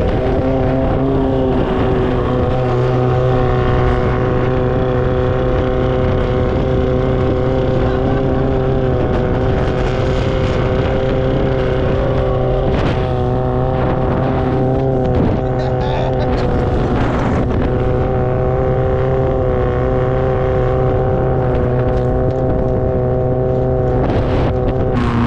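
Long-tail boat's straight-piped four-cylinder Toyota engine running steadily at speed, its pitch holding constant.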